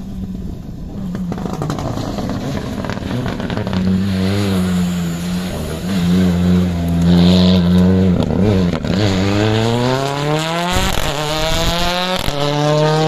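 Ford Fiesta rally car's engine running at high revs as it passes close. The pitch dips briefly about two-thirds of the way through, then rises steadily as the car accelerates away.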